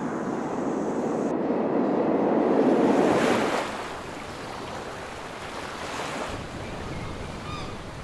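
Surf washing on a shore: a loud wash swells to a peak about three seconds in and falls away, then softer surf continues with a few faint high bird calls near the end.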